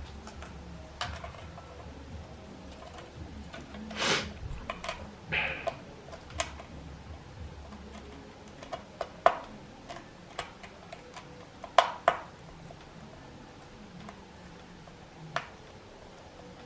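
Light clicks and taps of small repair tools and parts being handled on a workbench, irregular, with a few sharper clicks in the second half.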